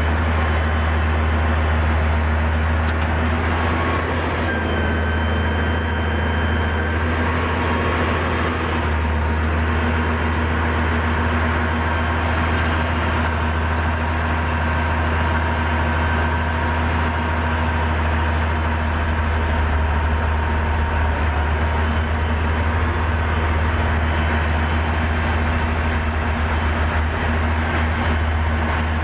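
Heavy diesel earthmoving machinery running steadily with a strong low drone, with thin whining tones above it.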